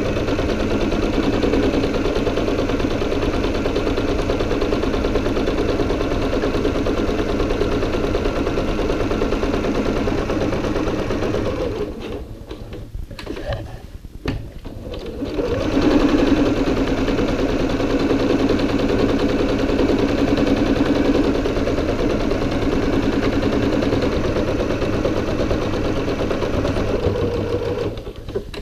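Electric sewing machine stitching a seam at a steady speed, stopping about twelve seconds in for a few seconds of light handling knocks while the fabric is turned, then stitching steadily again until near the end.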